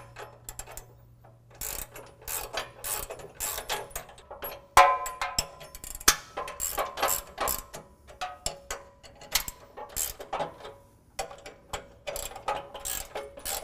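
Ratcheting wrench clicking in quick runs as it snugs up steel bumper bolts. One louder metallic clank with a brief ring comes about five seconds in.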